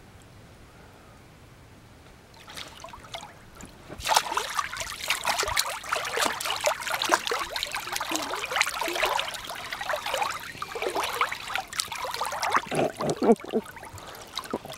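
Water splashing and sloshing in a small inflatable pool, close to the microphone. It starts faintly about two and a half seconds in, turns loud and choppy at about four seconds, and drops away just before the end.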